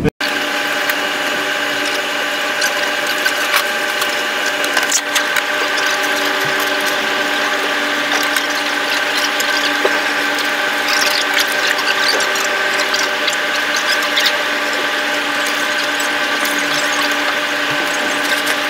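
A steady mechanical whine made of several unchanging tones, with scattered light clicks and rattles on top.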